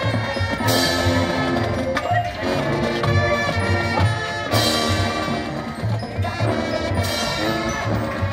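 High school marching band playing live: the horns hold chords over a steady drum beat, about two beats a second, with three cymbal crashes.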